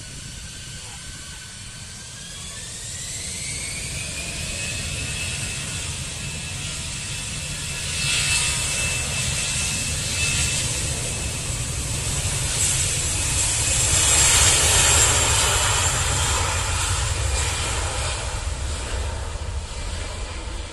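Twin jet engines of a Citilink Airbus A320 spooling up for the takeoff roll: a whine rising in pitch over the first few seconds, then a loud roar that grows as the jet accelerates past, loudest about two-thirds of the way through.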